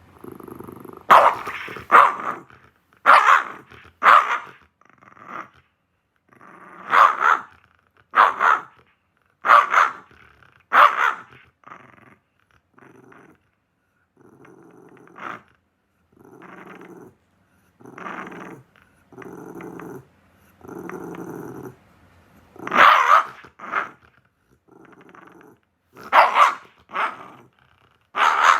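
A dog barking in short, sharp barks, often two close together, with stretches of low growling between them, longest in the middle.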